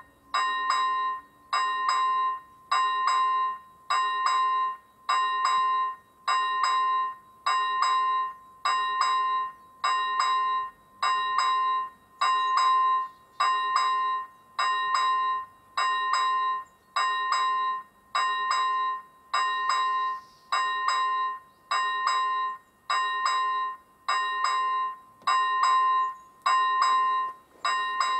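Railway level crossing's electronic warning bell ringing steadily, one ding about every second, signalling that a train is approaching.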